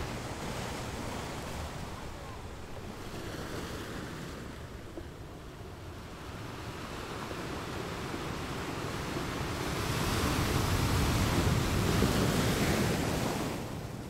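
Ocean surf breaking and washing on a beach, a steady rush of water that swells and ebbs, with the biggest wave building about ten seconds in and falling away near the end.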